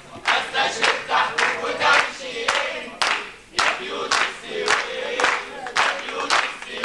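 Audience chanting and cheering together, with rhythmic clapping.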